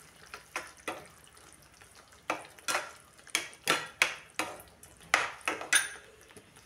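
Steel slotted spoon stirring thick masala in a kadai, clicking and scraping against the pan in short, irregular strokes, about two a second from about two seconds in.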